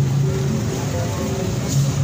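Loud music made of steady held low notes.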